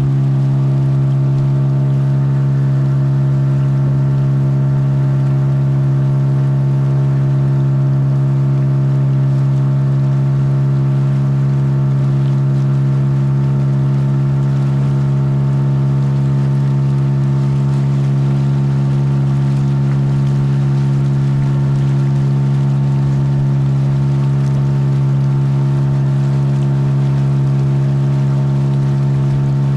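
Boat's outboard motor running at a steady, unchanging speed.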